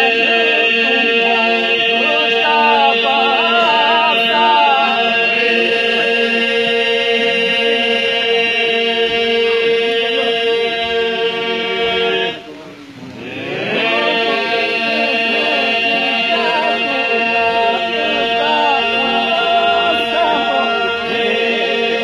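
Men's unaccompanied Lab iso-polyphonic singing: a steady held drone (the iso) under solo voices winding above it. About halfway through the singing drops away for a second or so, then the voices come back in over the drone.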